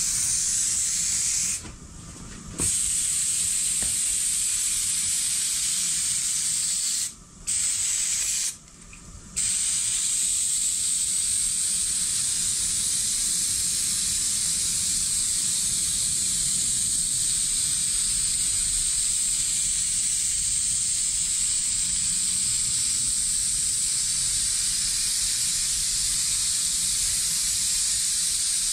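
Aerosol can of spray adhesive hissing as it is sprayed on. It stops briefly three times in the first ten seconds, then keeps spraying without a break.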